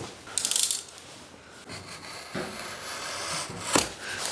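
A long cardboard-and-tape-wrapped bundle of teak boards being handled: cardboard scraping and rubbing, with a few knocks of the wrapped wood as it is moved and set down.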